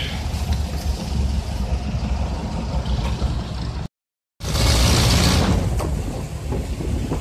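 Jeepney's diesel engine running with road noise, heard from inside the moving vehicle. The sound cuts out completely for about half a second just past midway, then comes back with a loud rush of wind for about a second.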